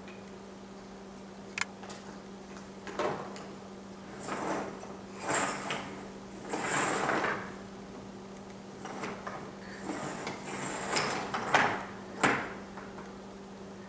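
Dishwasher rack being rolled in and out on its rails with a rattling clatter, several sliding runs of about a second each and a sharp click near the end, over a steady low hum.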